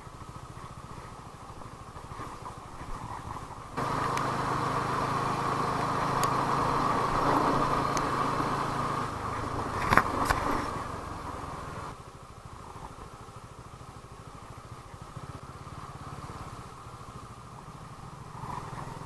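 TVS Apache RTR 200 single-cylinder motorcycle on the move, its engine running under steady road and wind noise. The sound gets suddenly louder about four seconds in and eases back down about twelve seconds in, with a brief sharp knock about ten seconds in.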